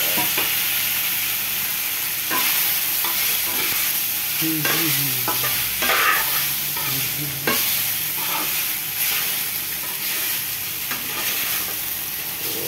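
Fusilli pasta and whole boiled eggs sizzling in hot oil in a frying pan while a metal spoon stirs and tosses them, with a steady sizzle and a sharp scrape or knock of the spoon against the pan every second or two.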